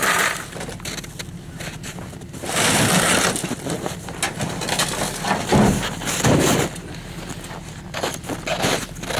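Ice-fishing gear being pulled out of a pickup bed and onto a sled: irregular scraping, rustling and clunking of bags and equipment, loudest in two stretches about two and a half and five and a half seconds in.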